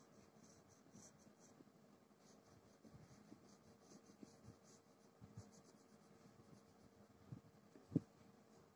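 Faint scratching of a crayon shading on paper in quick, light back-and-forth strokes, with a single knock near the end.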